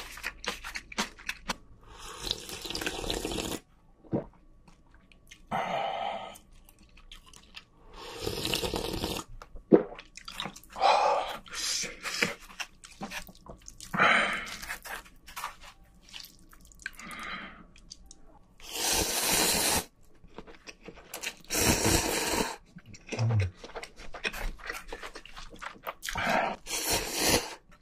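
Close-miked, wet slurping of cup ramen noodles, coming in repeated bursts of a second or two with quieter gaps between.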